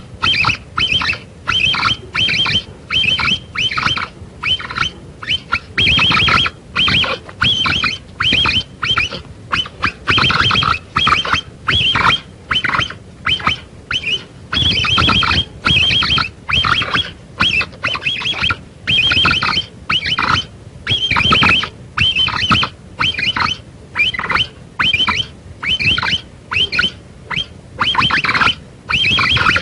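Capybara calls: a long run of short, repeated calls, about two or three a second, with brief pauses between groups.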